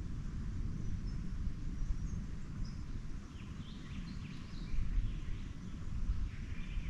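Birds chirping faintly in short scattered calls over a steady low outdoor rumble.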